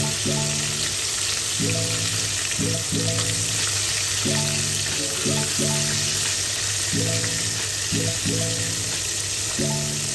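Chicken pieces deep-frying in hot oil, a steady sizzle, with background music playing a short phrase that repeats every couple of seconds.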